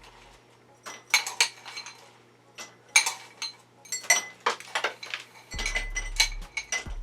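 Crushed ice being moved from a bowl into a drinking glass: a run of irregular clinks and clatters as pieces of ice hit the glass and the dish.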